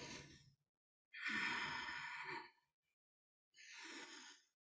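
A woman breathing audibly while holding a yoga back bend: one long breath about a second in, then a shorter, fainter one near the end.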